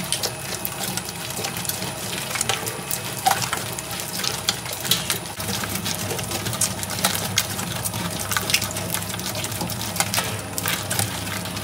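Electric slime mixer running with a steady motor hum, with irregular wet clicks and squelches from the thick clay slime being churned in its bowl.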